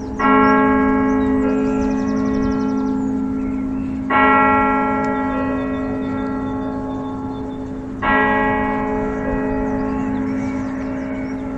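A large bell tolling: three strikes about four seconds apart, each ringing on with a deep hum and fading slowly.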